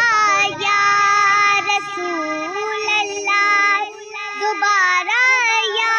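Urdu naat sung by a high voice in long, winding melodic runs without words, over a steady held drone.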